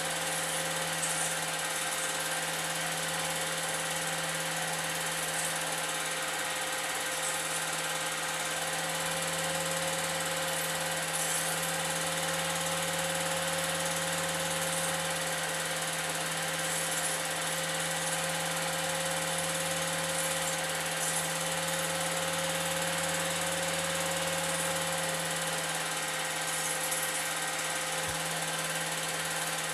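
Old 8mm film projector running: a steady motor and fan hum with a constant pitched whine.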